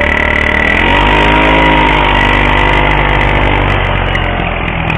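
Easy Ride 150N motorcycle engine running through its gutted exhaust muffler, revved once: the pitch rises about a second in, holds for a couple of seconds, then drops back toward idle near the end.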